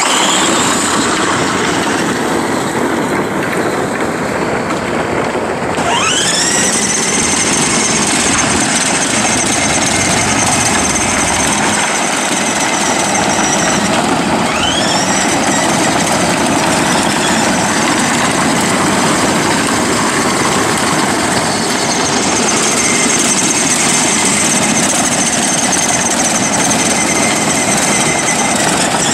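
A vehicle's motor running steadily and close by, with a whine that rises and then holds about six seconds in and again about fourteen seconds in, as it speeds up.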